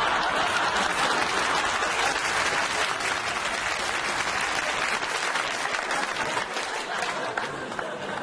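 Studio audience applauding, a dense spread of clapping that fades a little toward the end.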